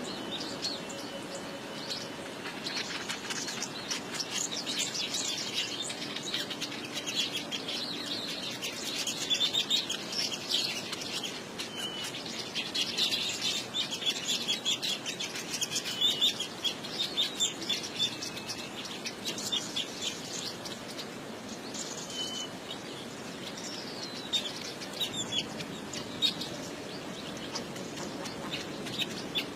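Small birds chirping continuously in quick, overlapping twitters. The chatter is busiest through the middle and thins out near the end.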